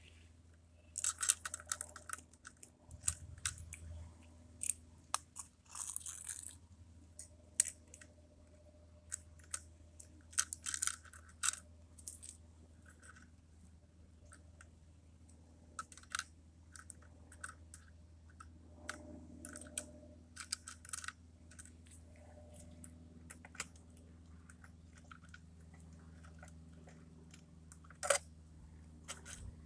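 A hand working a plastic toy rear-loader garbage truck: scattered irregular clicks and short crackling scrapes of plastic parts being moved.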